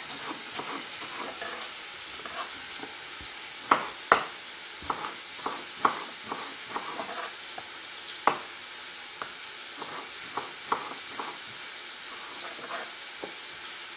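Knife slicing tomatoes on a wooden chopping board, the blade knocking on the board in irregular strokes, a few louder ones about four seconds in and again near eight seconds. Under it, the steady sizzle of onions and peppers frying in oil in a pan on high heat.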